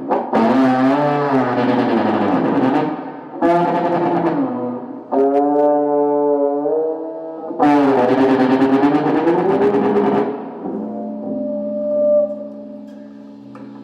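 Electric guitar feedback through a feedbacker effect: loud, pitched howling tones in several bursts, each wavering and bending up and down in pitch. Near the end it drops to a quieter, steady sustained drone with a brief high whistling tone over it.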